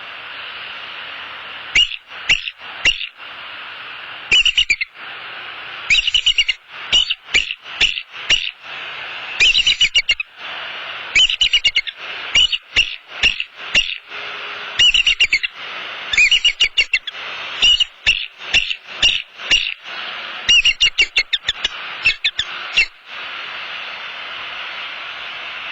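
Bald eagles calling in loud bursts of quick, high, piping chattering notes, over a steady hiss. These are alarm calls at an intruder near the nest. The calling stops near the end.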